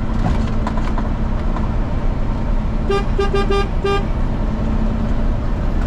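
A vehicle horn gives about five quick toots in a row, about three seconds in, over the steady low engine and road rumble of a moving truck.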